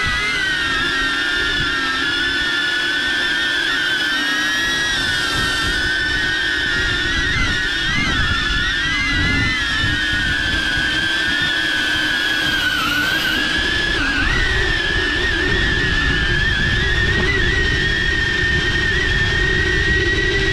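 DJI Avata FPV drone's ducted propellers and motors whining, heard through a GoPro mounted on the drone. Several close pitches waver up and down together as it hovers and manoeuvres, and low wind noise builds in the second half as it starts flying forward.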